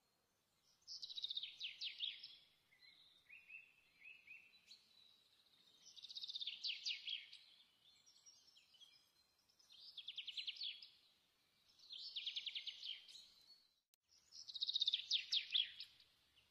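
A small bird singing: a short, fast trilled phrase, repeated five times about every two seconds.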